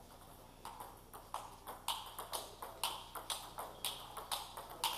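Table tennis rally: the celluloid ball clicking off the table and the two rubber-faced bats in a quick, even series of sharp ticks, starting about half a second in.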